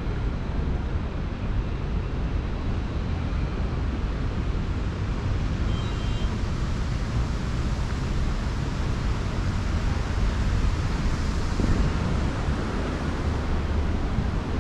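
Steady outdoor background rumble of traffic and wind, swelling briefly about twelve seconds in.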